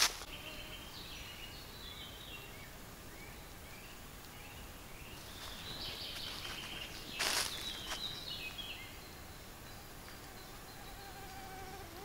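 Quiet forest ambience: an insect buzzing near the microphone and faint high chirps, with a short scuff of movement about seven seconds in.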